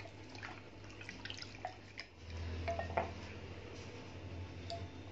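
Wooden spoon stirring a thin milky liquid in a glass bowl, with soft sloshing and light taps of the spoon against the glass. A low hum comes in about two seconds in.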